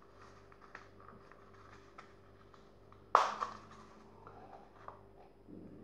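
A small razor case being handled: faint rustles and small ticks, with one sharp click about three seconds in.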